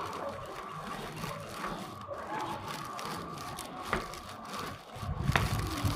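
Low background ambience of faint, indistinct voices with a steady faint hum. There are two sharp clicks in the second half, and a low rumble comes in near the end.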